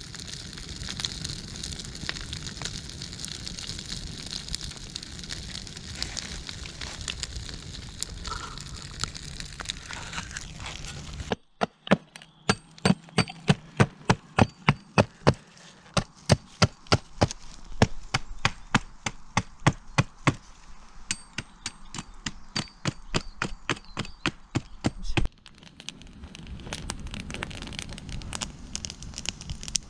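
Campfire crackling over a steady hiss, then an abrupt change to a rapid run of sharp wooden cracks, about three a second, for roughly thirteen seconds, before the crackling fire returns.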